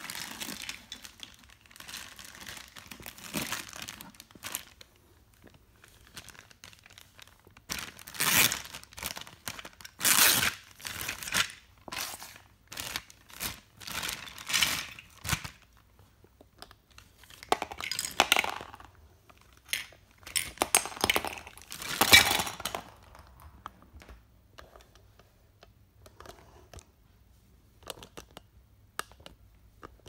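Clear plastic bag crinkling as it is handled and torn open, with small hard plastic toy pieces clinking as they come out and are set down on a wooden floor. The sound comes in irregular bursts, loudest about a third of the way in and again about two-thirds through, thinning to a few light clicks near the end.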